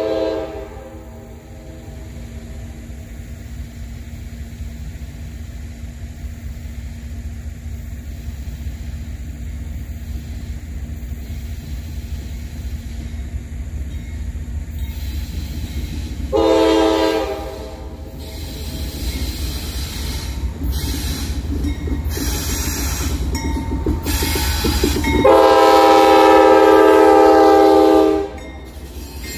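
Norfolk Southern diesel locomotives running light approach and pass close by, their engine rumble growing steadily. The horn sounds in two blasts: a short one about 16 seconds in and a longer, louder one about 25 seconds in, as the engines reach the microphone. A horn note cuts off just after the start.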